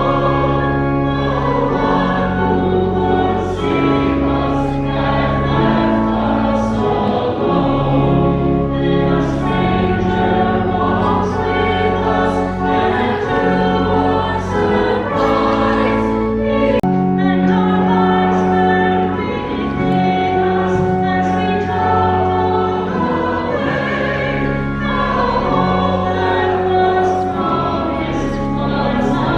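A choir singing with accompaniment: sustained low bass notes under held sung chords that change every second or two.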